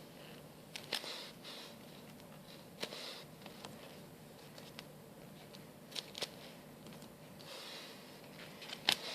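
Handling sounds of a squishy toy and its bits: soft rustles a few times and scattered small clicks and taps.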